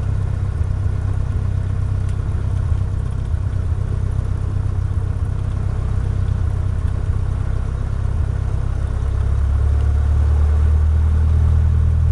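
Cessna 152's four-cylinder Lycoming O-235 engine and propeller giving a steady drone, growing somewhat louder about ten seconds in.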